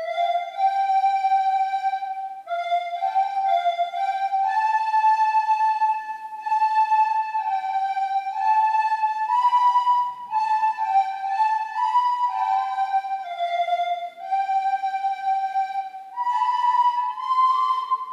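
A class of soprano recorders playing a simple melody in unison, the notes stepping up and down and climbing higher near the end.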